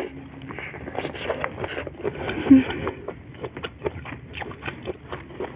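Close-miked biting and chewing of a whole shrimp cooked in chili sambal, with many small crackling crunches and wet mouth clicks.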